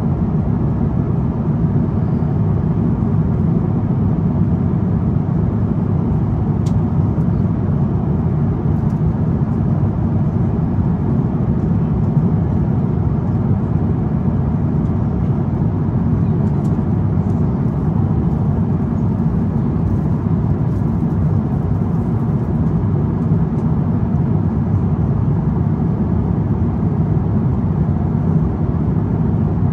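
Steady low rumble of an Airbus A350-900's engines and airflow, heard inside the cabin, with a few faint ticks.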